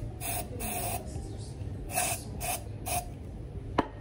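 Aerosol spray can hissing in several short bursts, about three quick sprays early on and three more around two to three seconds in, followed by a single sharp click near the end.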